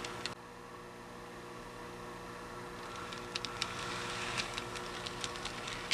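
Model diesel locomotive running along layout track: a steady motor hum, with light clicks of its wheels over rail joints and switch points starting about three seconds in.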